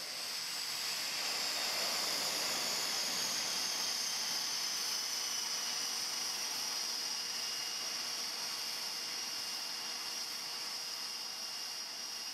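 A steady high-pitched hiss and whine, with one high tone slowly falling in pitch over the first several seconds and then holding.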